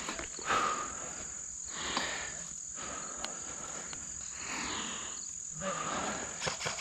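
Steady high-pitched insect chorus, with a rustling noise that swells and fades every second or so.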